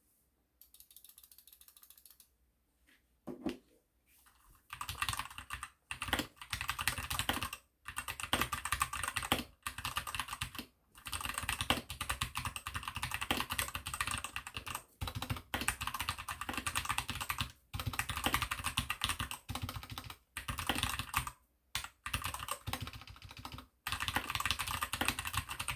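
Typing on an mstone Rooky 68BT compact 68-key mechanical keyboard: fast runs of keystroke clicks broken by short pauses, starting in earnest about five seconds in after a lone click.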